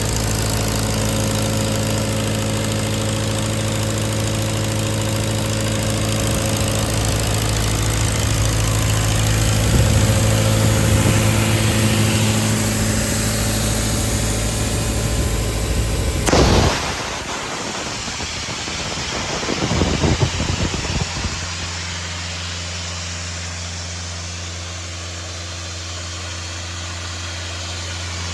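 Kubota V2403 four-cylinder diesel of a Doosan C185 towable air compressor, running steadily with a hiss over it. About two-thirds through there is a brief loud burst and the hiss stops. After a second short disturbance the engine runs on more quietly at a lower, steady note.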